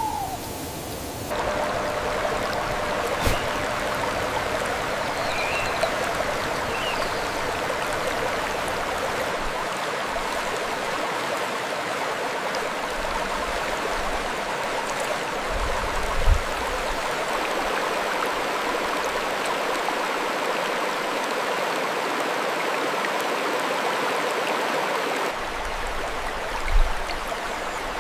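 Mountain stream running steadily, a dense even rush of flowing water that cuts in abruptly about a second in and shifts to a different, thinner water sound near the end.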